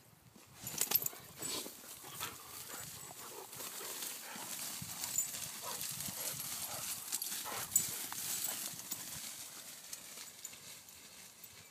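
Two Irish water spaniels running and bounding through grass: irregular footfalls of paws on turf with rustling of the grass.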